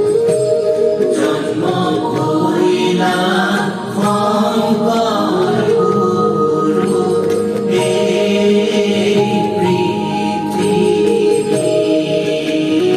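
Music with a group of voices singing in long held notes.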